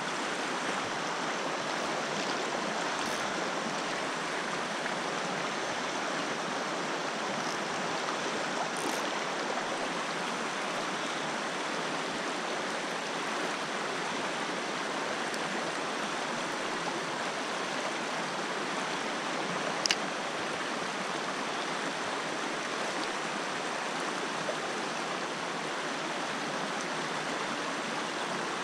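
Steady rush of a shallow, rocky mountain river running over stones, with one short sharp click about two-thirds of the way through.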